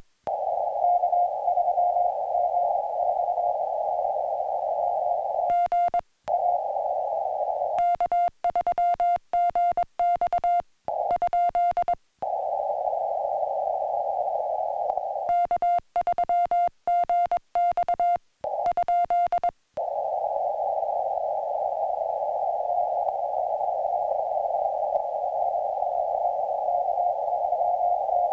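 Morse code (CW) on a portable ham radio transceiver. A single pitched sidetone is keyed in dots and dashes in three passages, a short one about six seconds in and two longer ones of about four seconds each. Between them is steady receiver hiss heard through a narrow CW filter, with a faint tone in it.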